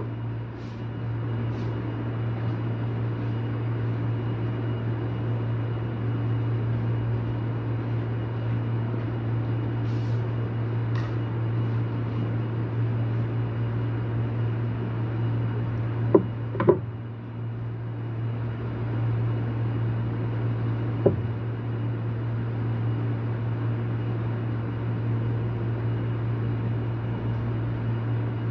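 Steady low machine hum, with two sharp clicks a little past halfway and a single click a few seconds later.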